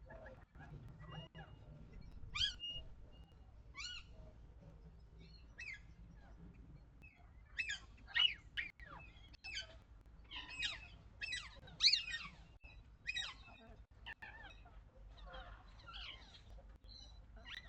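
Birds giving many short, sharp calls one after another, most crowded and loudest about halfway through, over a steady low rumble of wind on the microphone.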